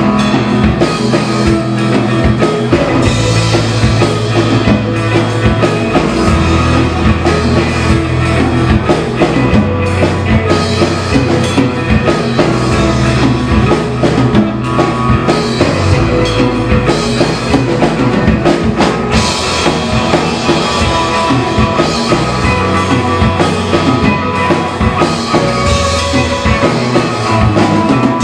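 Live rock band playing loudly: distorted electric guitar, electric bass and drum kit.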